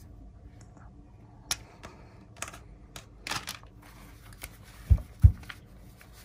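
Sennheiser HD 400S headphones and their cable being handled: scattered light plastic clicks as the plug and earcups are worked, then two dull knocks close together about five seconds in.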